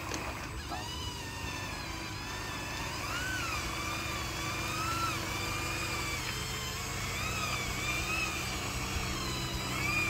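Electric motors and gearboxes of a radio-controlled model bulldozer pushing a model dump truck through mud, whining steadily, with the pitch rising and falling in smooth swells as the throttle changes.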